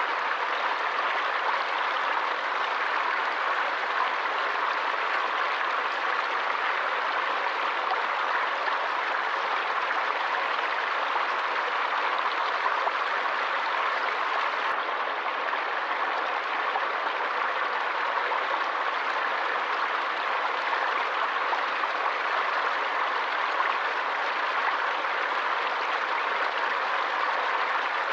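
Forest stream water running steadily over rocks, an even rushing and splashing with no change in level.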